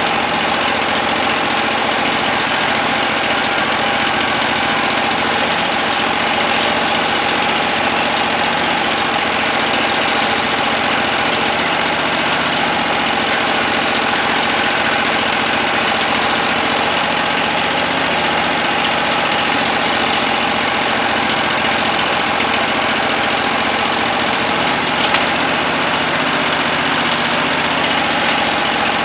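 Wood-Mizer LT15 Go sawmill's gas engine running steadily as it warms up, just started after sitting unused for a few months.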